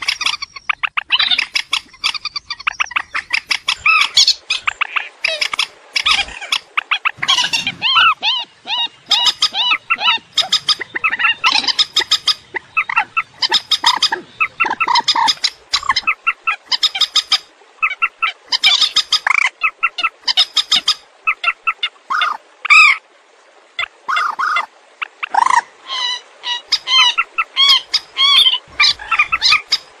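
Purple swamphens calling: a dense run of rapid, repeated short calls, often overlapping, with a brief lull about three quarters of the way through. It is a lure recording played to draw swamphens into trapping nets.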